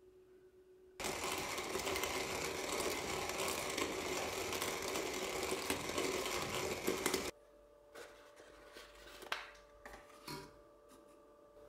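Hand-cranked coffee grinder grinding beans: a steady, gritty crunching that starts suddenly about a second in and stops abruptly some six seconds later. Then soft paper rustles and light taps as a fluted paper filter is set into a stainless dripper.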